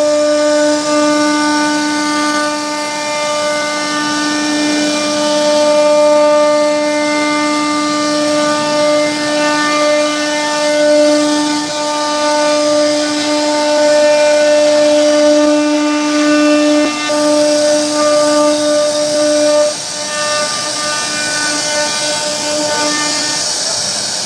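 A CNC router spindle is running and routing grooves into a wooden door panel. It makes a steady high whine over a hiss of cutting, and the whine breaks up and wavers in the last few seconds.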